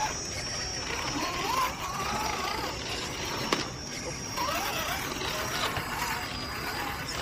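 RC off-road crawler truck's small electric motor and gears whirring as it drives, with a sharp click about three and a half seconds in.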